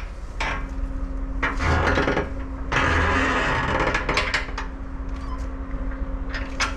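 Metal tools and parts clanking and knocking, with two longer rattling scrapes about two and three seconds in, over the steady hum of a running portable generator.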